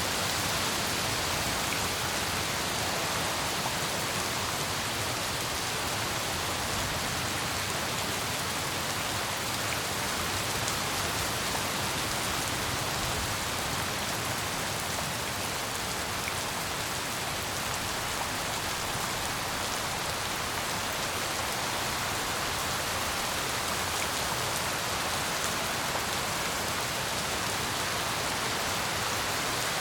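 Steady rain falling, a dense even hiss of drops hitting surfaces with faint individual drop ticks scattered through it.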